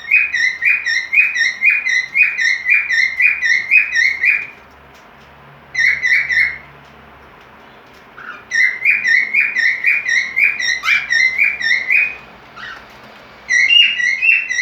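Cockatiel giving its breeding-season call: bouts of quick, repeated chirps, about three or four a second, broken by short pauses.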